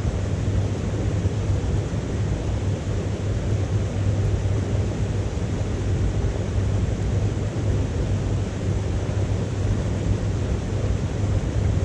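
Wood fire burning in a small titanium wood stove, with a steady low roar.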